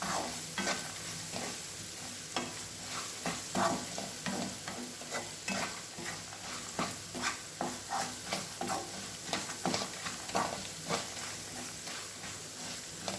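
Onions and tempering frying in oil in a pan: a steady sizzle with frequent irregular scrapes and taps of a spatula stirring, as the onions are fried until transparent.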